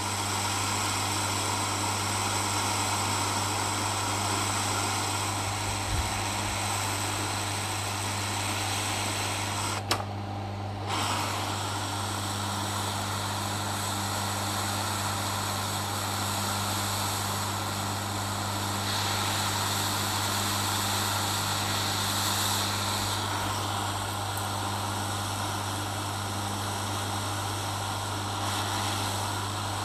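Hot air rework station blowing a steady hiss of hot air onto a small surface-mount IC to reflow the solder paste beneath it, over a constant low hum. The hiss drops out briefly about ten seconds in.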